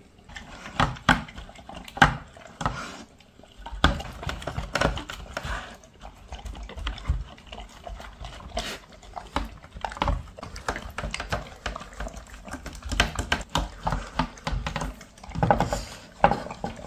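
A dog eating a raw meal from a plastic slow-feeder maze bowl: close, irregular chewing and licking, with many quick clicks.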